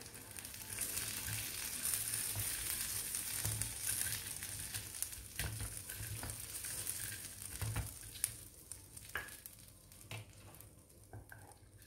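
Hot fried anchovies and their oil sizzling in chili sambal in a wooden mortar, with scattered knocks as a wooden pestle presses them down. The sizzle fades over the last few seconds.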